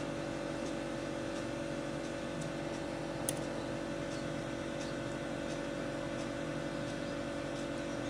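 Steady electrical hum with a few faint ticks and one sharper click about three seconds in, as a screwdriver turns the trim presets on a CRT TV's board.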